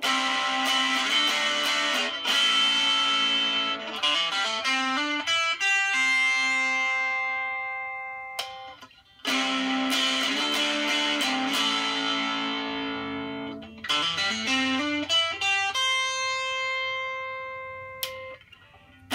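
Squier Cyclone electric guitar with a Rickenbacker Toaster pickup in the bridge and a Hi-Gain in the neck, played through a Double Muff fuzz pedal into a Vox AC4TV mini amp. Strummed chords are left to ring and fade, stopping about eight seconds in and starting again a second later; near the end a quick run of notes leads to a held note that is cut off.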